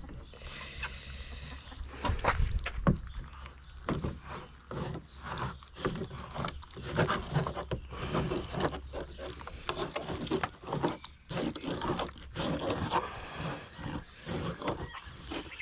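Knife and hands working a raw stingray wing on a plastic table: irregular wet scrapes, taps and tearing as the skin is cut and pulled away from the flesh. A low steady hum underneath stops about two thirds of the way through.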